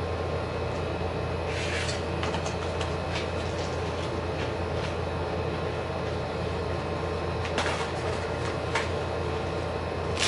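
Steady low background hum with scattered light clicks and rustles as snacks are dropped into plastic cups and a plastic snack container is handled.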